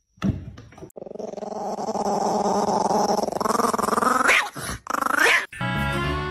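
A dog growling in one long drawn-out vocalisation, its pitch sweeping sharply upward twice near the end. Music starts just before the end.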